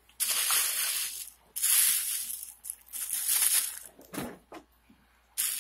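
Plastic bag rustling and crinkling as it is handled, in three bursts, then a pause of about a second before it starts again near the end.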